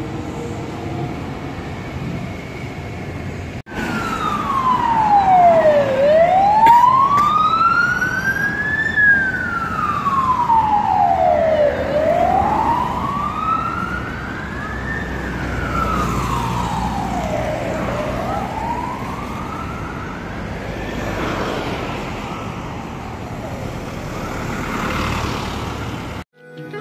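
Emergency vehicle siren wailing slowly up and down, about one rise and fall every six seconds, over city traffic noise. It starts about four seconds in and fades out near the end.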